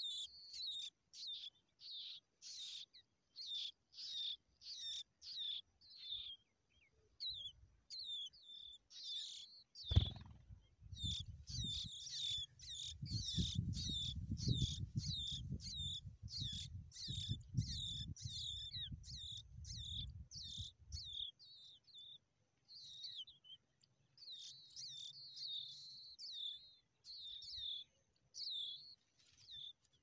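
Skylark nestlings' high, short begging chirps, repeated several times a second, as they beg to be fed. About ten seconds in comes a sharp knock, followed by about ten seconds of low rumbling under the chirps.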